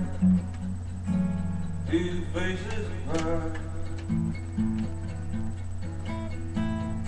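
Cutaway acoustic guitar strummed in a run of chords, each stroke ringing on into the next.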